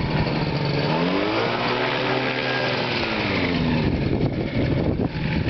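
Ultralight aircraft engine and propeller flying low; its pitch rises and then falls back over about three seconds.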